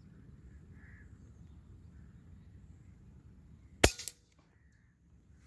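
PCP P15 air rifle firing a single shot: one sharp crack about four seconds in, followed by a couple of quick smaller clicks.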